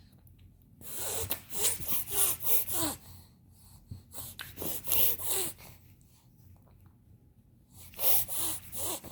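Coughing in three fits, each a quick run of three or four harsh coughs: about a second in, around four to five seconds in, and near the end.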